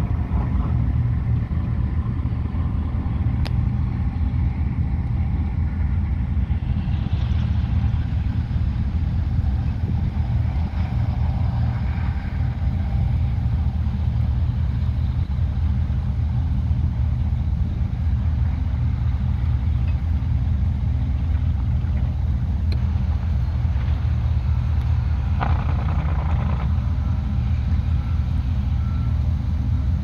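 Steady low drone of diesel engines from the tractor, grain cart and semi grain truck working the field. A faint beep repeats at even spacing during the last several seconds.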